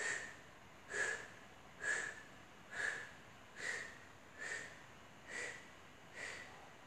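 Short, sharp breaths out through the nose, eight in an even rhythm of about one a second, in time with pulsing kicks of the back foot into an exercise ball.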